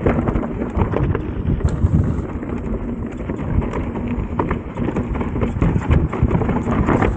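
Chainless mountain bike descending a rough, rocky trail: tyres rumbling and crunching over stones, with a steady stream of rattles and knocks from the bike.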